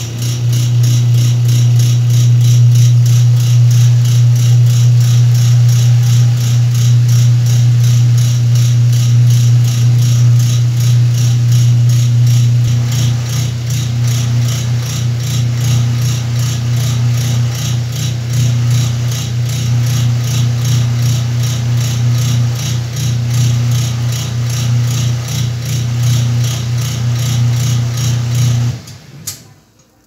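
Whirlpool top-load washing machine running: a steady motor hum with a fast, evenly repeating rattle, which stops abruptly about a second before the end.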